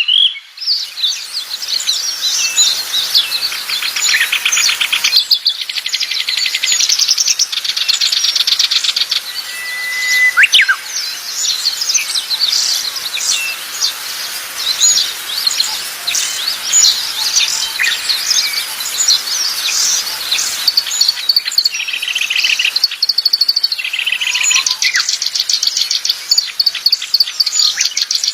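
Several small songbirds singing together: a dense mix of chirps, short whistles and fast buzzy trills. The mix of songs changes abruptly a few times.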